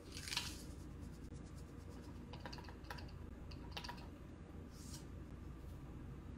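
A few faint, scattered light clicks and ticks as salt is shaken from a plastic salt canister into a food processor bowl.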